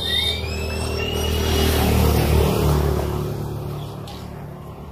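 Small two-stroke engine revving: a rising whine in the first second, loudest about two seconds in, then easing back down.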